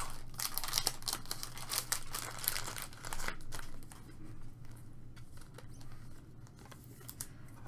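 A baseball card pack's wrapper crinkling and tearing as it is peeled open by hand. The crackle is densest for about the first three seconds, then drops to a few quieter rustles and ticks as the cards are handled.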